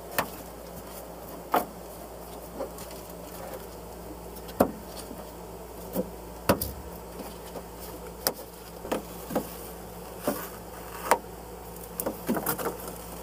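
Rubber window seal being pried and peeled back from the side window of a classic VW Beetle: irregular sharp clicks and taps about a second apart, several in quick succession near the end, over a faint steady hum.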